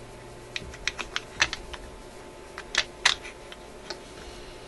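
About a dozen light, irregular clicks and taps from hands working the record player's turntable platter and its centre spindle with the 45 record ring.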